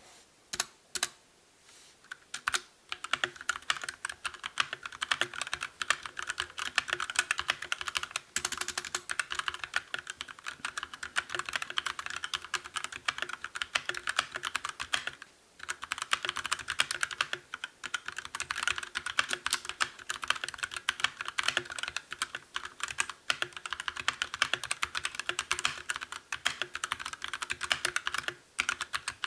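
Mechanical keyboard being typed on fast: a few separate keystrokes, then a continuous stream of key clacks with short pauses about halfway through and near the end.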